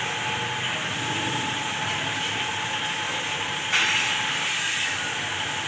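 Steady hissing noise with a faint steady hum-like tone, getting louder about four seconds in.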